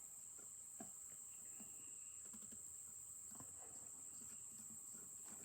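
Near silence: room tone with a faint steady high-pitched whine and a few faint small ticks.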